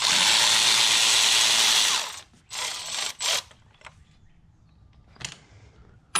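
A ratchet spinning a 13 mm bolt loose, the bolt holding the lower heater-hose pipe on the engine. It runs hard for about two seconds, then gives two shorter bursts, and a couple of light clicks follow near the end.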